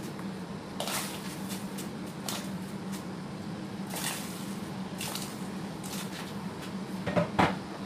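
Chunks of potato and tomato pushed off a wooden chopping board into a pot of boiling water, landing in a series of short splashes and knocks, the loudest pair near the end. A steady low hum runs underneath.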